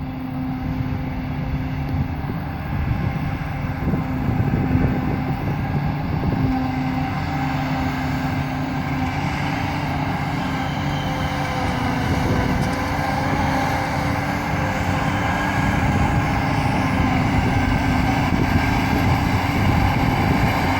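A chopper (Häcksler) running steadily with its discharge chute removed. Its engine and cutting rotor make a constant, even drone that grows slightly louder a few seconds in.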